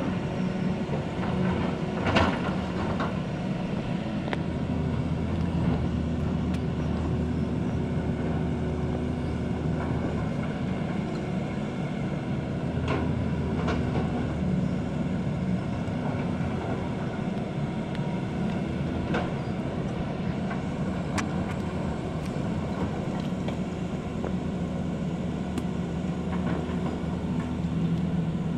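Steady diesel engine hum from a tracked excavator and a dump truck at work, with a few sharp knocks of rock against steel as the excavator digs and loads; the loudest knock comes about two seconds in.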